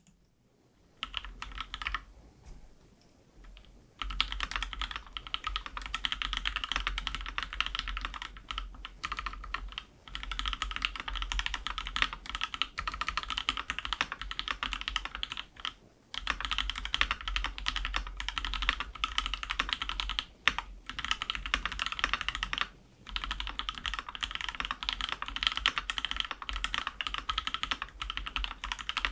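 Fast, continuous typing on a custom mechanical keyboard with lubed TKC Banana Split linear switches in an aluminium plate, a dense stream of key clacks broken by a few brief pauses.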